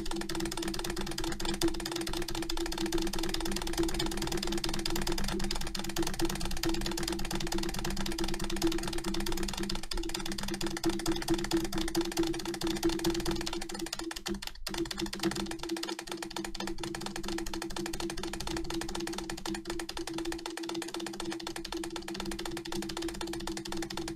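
Rapid, continuous clicking of an Acer computer keyboard's spacebar, pressed about eight to nine times a second by fingers of both hands in turn, over a steady low hum.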